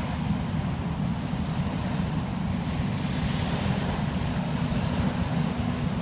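Wind rumbling steadily on the microphone, a low, even noise, with a few faint metal clinks near the end.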